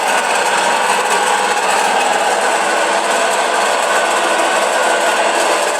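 Samsung washer-dryer in its spin cycle, running with a loud, steady mechanical noise with a constant hum. This is the abnormal noise the machine makes when it spins.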